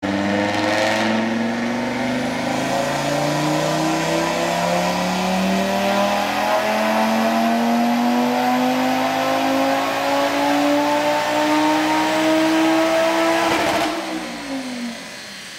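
Audi RS3's turbocharged 2.5 TFSI five-cylinder, stage 3 with a TTE700 hybrid turbo, running a dyno pull: the revs climb steadily under load for about fourteen seconds, then the throttle closes and the revs fall away.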